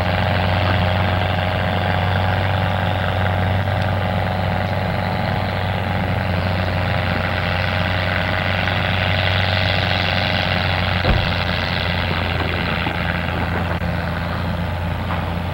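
A vehicle's engine running steadily, a low hum under a broad rushing noise, with one brief knock about eleven seconds in.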